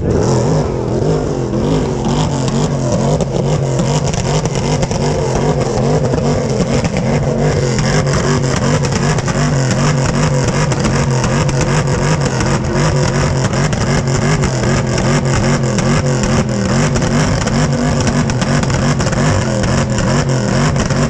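A car engine and exhaust running loud and fairly steady, its pitch wavering slightly.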